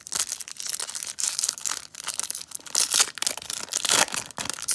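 Foil-lined wrapper of a Topps baseball card pack being torn open and crinkled by hand: a dense run of sharp crackles, loudest about three and four seconds in.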